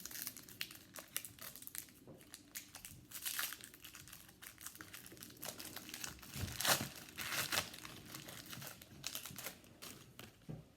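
Trading-card pack wrapper crinkling and tearing as it is opened by hand, in irregular crackles that are loudest about two-thirds of the way in.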